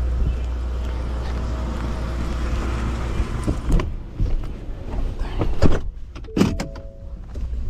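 A vehicle engine idling steadily, with a series of sharp clicks and knocks in the second half, like a car door being handled and shut.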